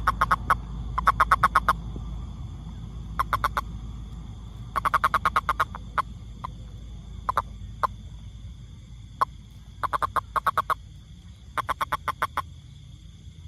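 A frog calling in short trains of rapid pulses, each train lasting about half a second to a second and repeating every second or two, with single clicks between them.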